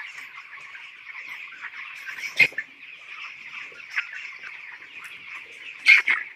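A shed full of 17-day-old broiler chicks peeping all at once, a dense, continuous chatter of small chirps. Two short, louder sharp sounds stand out, one about two and a half seconds in and one near the end.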